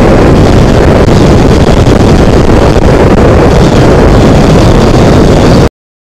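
Loud, steady wind rush buffeting the rider's microphone over a Yamaha MT-15 motorcycle's single-cylinder engine cruising at highway speed. The sound cuts off suddenly to silence near the end.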